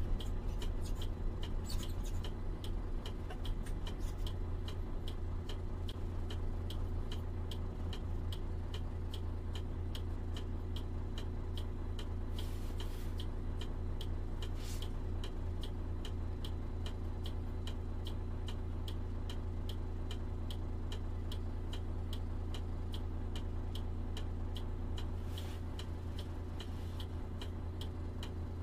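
A truck's turn indicator clicking at a regular steady rate inside the cab, over the low steady hum of the engine idling while the truck stands waiting to turn right.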